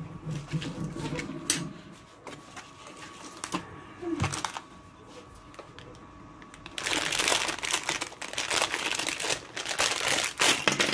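Small plastic toy pieces and packaging being handled: scattered clicks at first, turning about halfway through into a busy run of rustling and light plastic clatter.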